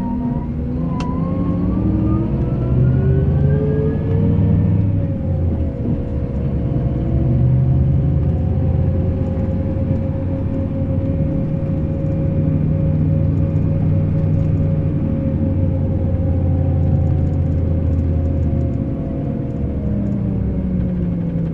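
Scania K380 IB coach's engine under way: its pitch climbs over the first four or five seconds as it accelerates, then holds steady, easing off a little near the end, with a steady whine over the engine note.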